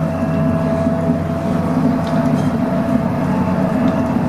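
Interior running noise of an AEG GT8N articulated tram moving at steady speed: a continuous rolling rumble with a steady whine over it.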